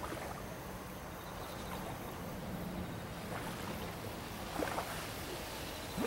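Small waves lapping on the lakeshore in a few soft splashes, the clearest about three quarters of the way in, over a steady outdoor hiss and a faint low hum in the first half.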